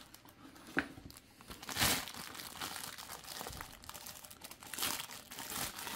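Thin plastic bag crinkling and rustling in irregular bursts as it is handled, loudest about two seconds in.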